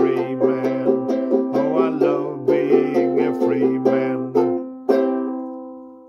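Strummed banjo with a harmonica blown from a neck rack, playing an instrumental passage. The music ends on a final strummed chord about five seconds in that rings out and fades.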